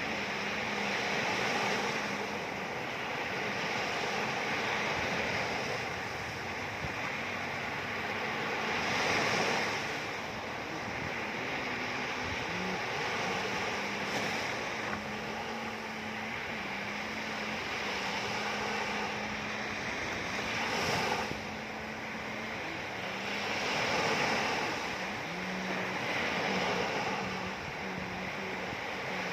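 Ocean waves washing in, swelling and easing every few seconds, with a low steady hum underneath.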